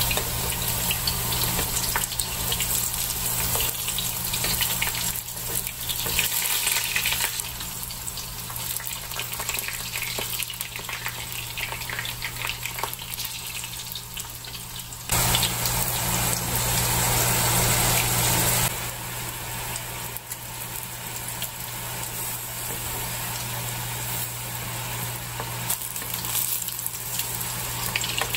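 Zucchini rounds sizzling as they fry in olive oil in a skillet, with light clicks of metal tongs against the pan as the slices are turned. A louder steady rush cuts in for about three and a half seconds just past the middle, then stops abruptly.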